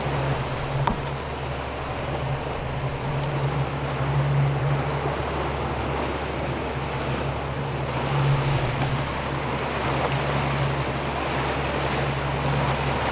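Boat's outboard engine running with a steady low drone, over the rush of water along the hull.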